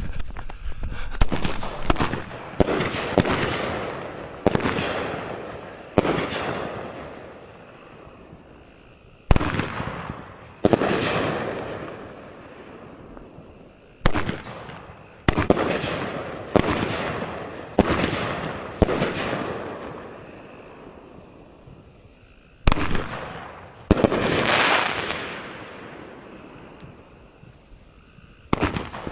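A large consumer firework cake (multi-shot aerial repeater) firing: about fifteen sharp bangs at irregular intervals of a second or more, each trailing off over a second or two, with a few brief lulls between volleys.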